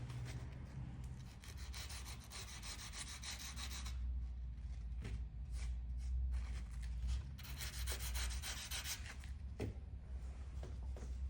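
Coarse sandpaper rubbed by hand over painted plaster in irregular strokes, feathering out paint chips, over a low steady hum.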